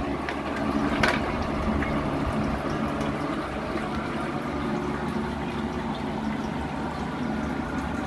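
Homemade ultrasonic humidifier running: an 80-watt AC fan motor hums steadily over water churning and splashing in the pump-fed sump. There is a short knock about a second in.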